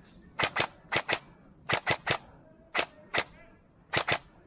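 Airsoft guns firing single shots: about eleven sharp cracks, mostly in quick pairs.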